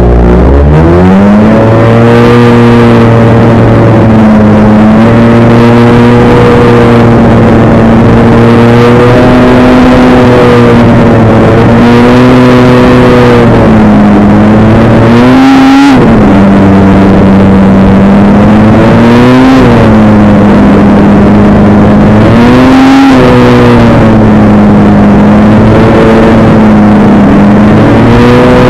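Bickle Built Outlaw 600's 600 cc two-stroke snowmobile engine, heard very loud from onboard. It revs up from a standstill in the first second or two, then holds a steady high drone, with its pitch briefly rising and dipping a few times in the later part as the throttle comes off and goes back on.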